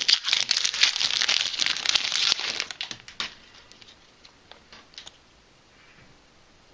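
Foil wrapper of a Yu-Gi-Oh trading card booster pack crinkling and tearing as it is opened by hand, loud for about three seconds before stopping abruptly. A few faint clicks follow as the cards are handled.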